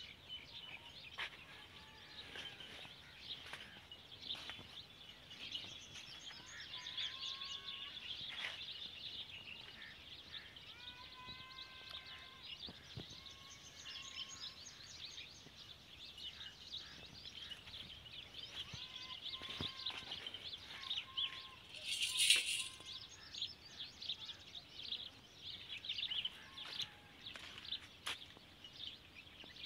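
Many small birds chirping, with another bird's repeated whistled calls several times. A short harsh noise stands out about two-thirds of the way through.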